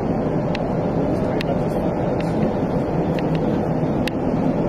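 Steady noise on an Airbus A380 flight deck, the mix of engine, airflow and air-conditioning sound, with several faint, sharp ticks at irregular intervals.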